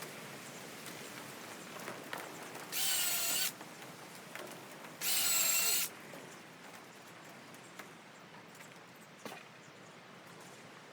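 Power drill running in two short bursts with a steady high whine, each under a second and about a second and a half apart, working into timber; a few light knocks between.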